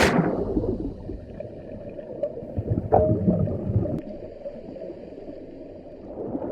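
Low gurgling, churning water sound, loud at first and then settling, with two sharp clicks about three and four seconds in.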